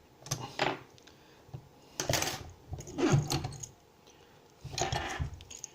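American Lock L50-series wafer padlock, just picked open, being handled along with picking tools: four short bursts of metallic clicking and rattling.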